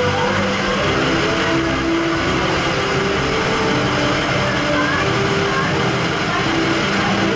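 Pickup truck engines running as the trucks creep forward in a slow drive-through line, a steady low rumble, with a few steady held tones that step from one pitch to another every second or two.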